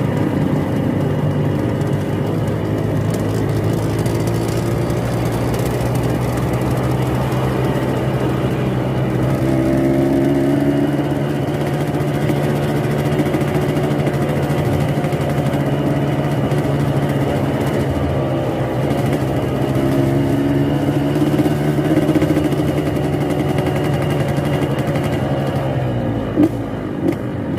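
Yamaha RX-King two-stroke single-cylinder motorcycle engine tuned for the growling 'ngorok' (snoring) sound, running steadily with its pitch swelling up and back down twice. Near the end the steady note breaks off, with two sharp pops.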